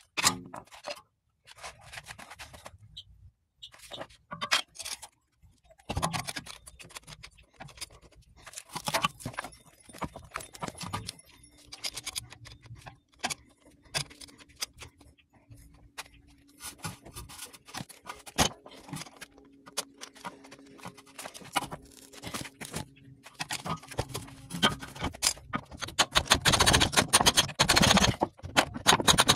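Metal clicking, rattling and scraping as hand tools, a tensioned ratchet strap and a pry bar work on a CV axle joint seized by rust in the transmission. The clicks are irregular, with a faint steady hum through the middle, and turn dense and loudest near the end.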